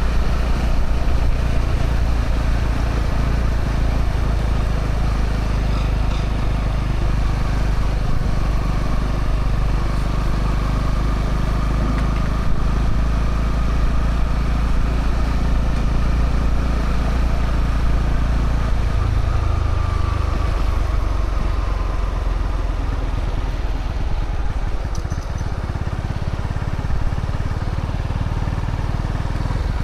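Honda CB125R's single-cylinder 125 cc engine running through its stock exhaust while being ridden, a steady low engine note that drops and settles lower about two-thirds of the way through.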